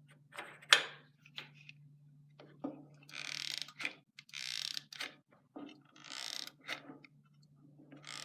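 Drill press speed-change parts being worked by hand: clicks and several longer scrapes and creaks over a steady low hum.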